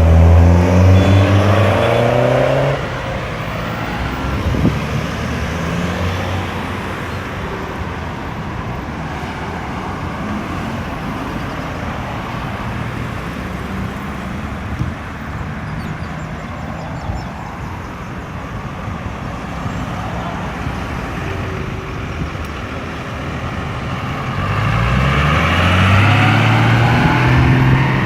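Road traffic passing through a busy roundabout. A vehicle's engine climbs in pitch as it accelerates away at the start, steady traffic noise follows, and near the end another vehicle accelerates past, its engine pitch rising again.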